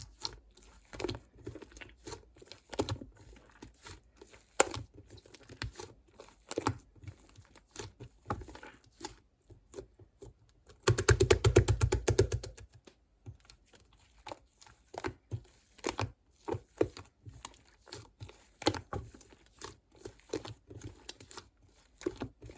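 Irregular close-up crinkling and crackling as something is handled, with a dense rapid run of crackles a little past the middle that lasts over a second and is the loudest part.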